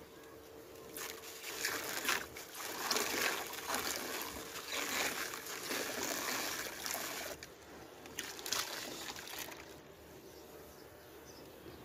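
A dry sand chunk crumbled between hands, its grit pouring into a tub of water with a gritty, hissing trickle. It runs from about a second in to about seven seconds, and there is a shorter pour again near nine seconds.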